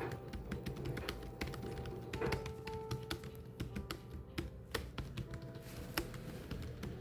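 Typing on a typewriter: quick, irregular key strikes, several a second, with soft background music underneath.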